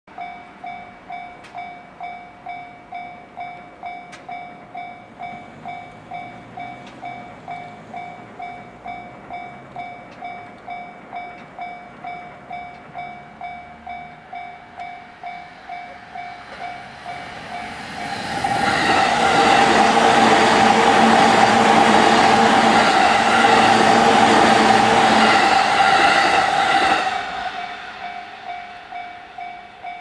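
Japanese level-crossing warning bell ringing steadily, about two rings a second. A JR East E233-series electric commuter train approaches and runs over the crossing, loud for about eight seconds from a little past halfway, then fades while the bell keeps ringing.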